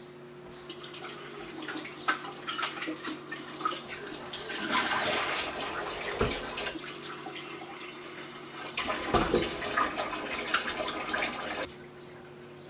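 Kitchen tap running water into the sink while dishes are washed, with clinks and knocks of dishware; the water stops suddenly near the end.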